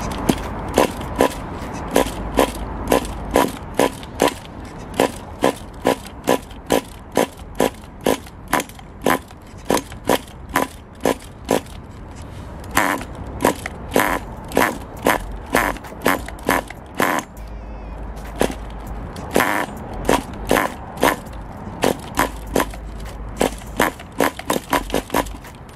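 Small two-stroke nitro RC car engine on WD-40 being cranked over and over, giving a sharp pop about twice a second, with a few longer sputters. It fires but never catches: it wants to start but can't.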